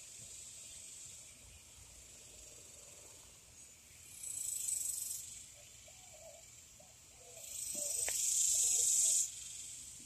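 Outdoor insect chorus: a steady high-pitched shrill, with two louder buzzing calls that swell up, the second lasting about two seconds and cutting off suddenly.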